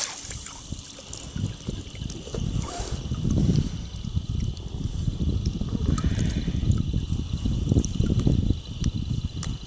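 Water sloshing and trickling close to the microphone, an uneven low rumble that swells and fades.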